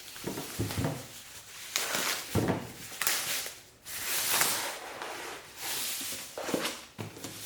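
Packing material being pulled and rubbed off a boxed light bar: a series of rustling, rubbing swishes with short pauses between them.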